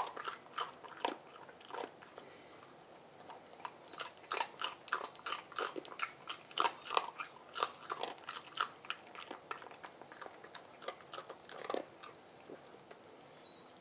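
Cavalier King Charles spaniel crunching an ice cube in its teeth: a quick run of sharp crunches, thickest in the middle and thinning out near the end.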